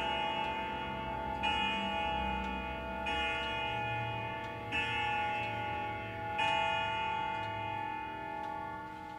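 Grandfather clock's Hermle movement striking the hour at 4 o'clock: ringing strokes about every one and a half seconds, each with a long ring, the last about six seconds in and then dying away.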